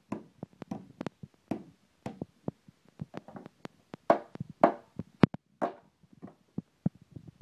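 An old mobile phone being struck over and over: a run of sharp, irregular knocks and cracks, several a second, the heaviest blows about four to five seconds in.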